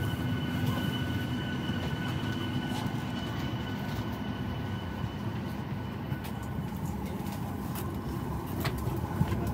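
Steady low hum and air noise inside a parked Boeing 737 MAX 9 cabin during boarding, with a faint high whine over it and a few light clicks near the end.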